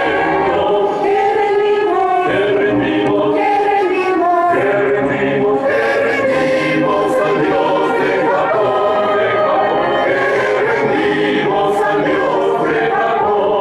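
A large group of voices singing together in long held notes, like a choir.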